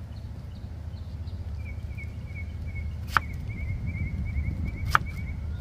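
A knife cutting up yellow yam: two sharp knocks about two seconds apart over a steady low rumble.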